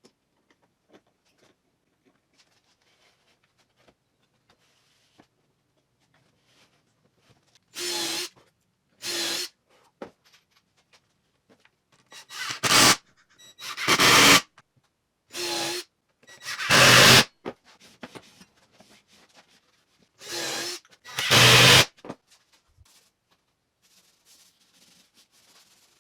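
A power tool run in eight short bursts of about a second each, mostly in pairs, from about eight seconds in to about twenty-two seconds in.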